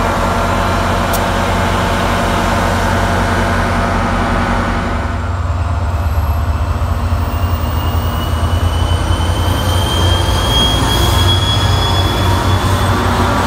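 Metro-North GP40PH-2 diesel locomotive's EMD V16 two-stroke engine running steadily, then, about five seconds in, a louder and rougher rumble as the train starts moving, with a thin high whine rising slowly in pitch as it gathers speed past the platform.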